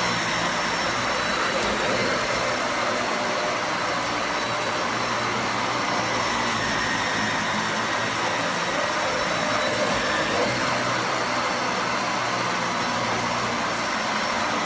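Dyson Ball Animal 2 upright vacuum cleaner running steadily: an even rush of air with a faint high motor whine, stopping abruptly at the end.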